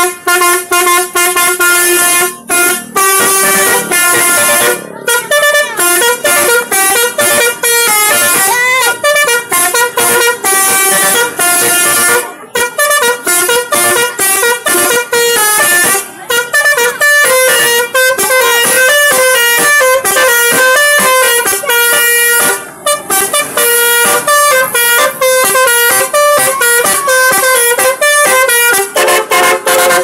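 Roof-mounted telolet horn, a row of trumpet horns on a car, playing a loud melody. Several tones sound together and change quickly, almost without a break apart from a few short pauses.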